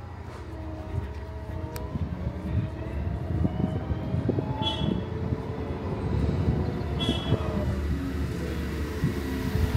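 Engine of construction machinery running, with irregular clanks and knocks over a steady low hum.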